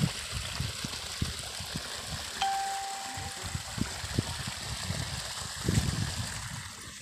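Footsteps walking along a muddy rice-paddy bund: irregular soft low thumps over a steady hiss, with one short, clear ringing tone about two and a half seconds in.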